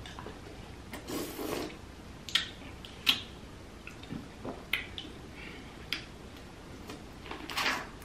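Close-miked eating of butter-sauced tiger prawns: wet chewing with sharp mouth clicks and lip smacks scattered through, and two longer wet sucking sounds, about a second in and near the end.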